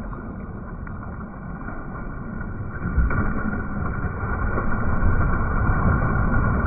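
Small lake waves washing and splashing at the shoreline, right at the microphone, over a low rumble. The water gets louder from about three seconds in, with a splash there.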